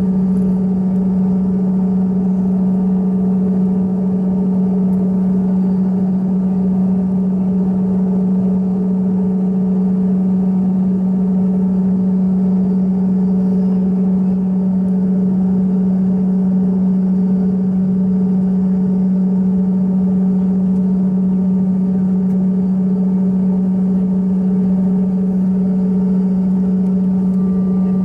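Steady cabin drone inside a taxiing Bombardier CRJ-200, its two rear-mounted CF34 turbofans at low power, with a strong unbroken low hum.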